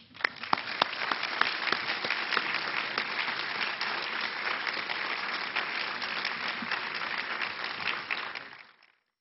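Audience applauding, breaking out at once and dying away near the end.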